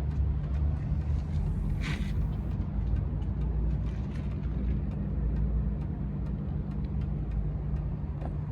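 A Mercedes W140 S320L's engine running steadily with an even low hum.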